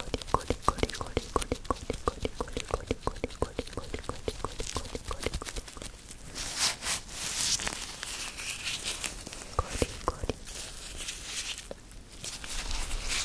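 Rubber gloves rubbed and pressed together close to the microphone: a quick run of small sticky crackles for the first few seconds, then softer swishing rubs with a couple of clicks.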